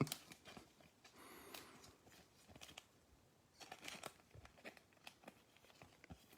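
Faint rustling and scattered small clicks of trading cards and pack wrappers being handled, with a sharper click right at the start and a short flurry of clicks about four seconds in.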